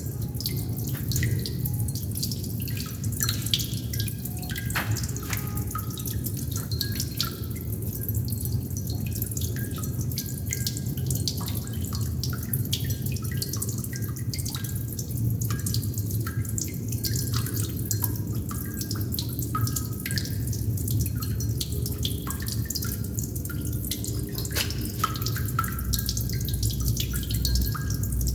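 Water droplets falling into water, many a second and irregular, each a short pitched plink, over a steady low rumble.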